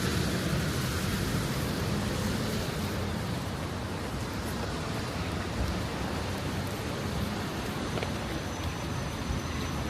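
Rainy city street ambience: a steady wash of traffic noise and rain, with no single event standing out.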